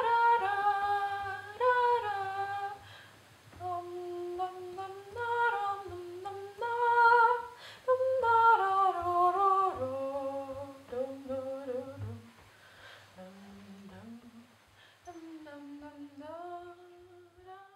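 A woman humming a slow wordless melody alone, one voice gliding from note to note without accompaniment. It grows quieter over the second half and dips to a few low notes before rising again near the end.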